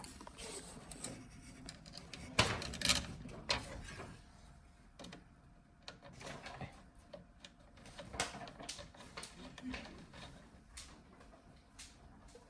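Scattered small clicks, taps and rattles of hands handling computer parts and loose screws, a louder cluster of clicks about two and a half seconds in.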